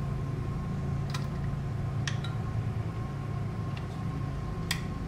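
About five short sharp clicks and taps of metal and plastic, the last the loudest, as a Cooler Master Hyper T4 tower cooler is positioned on the CPU and its mounting clip handled, over a steady low hum.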